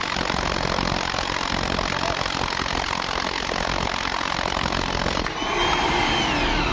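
Construction drilling machinery running with a loud, steady noise. About five seconds in the sound changes abruptly and a motor whine glides down in pitch.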